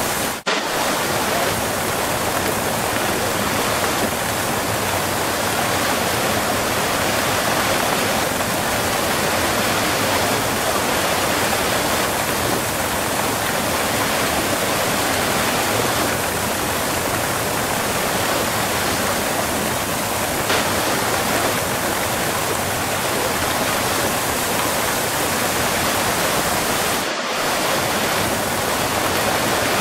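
Close-up waterfall: a steady, full rush of falling water, with a momentary dip in level about half a second in.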